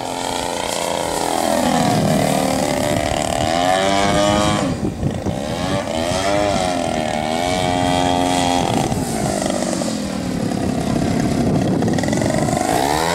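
Propeller engine of an aerobatic airplane running hard as it manoeuvres and passes overhead, its pitch sweeping down and back up several times.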